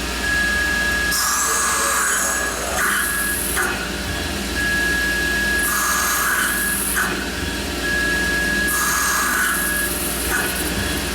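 Tormach Slant-Pro CNC lathe turning a chamfer on a 1045 cold-rolled steel cone. A steady high whine is broken by repeated scraping bursts of the tool cutting, roughly every three seconds, as it makes successive passes.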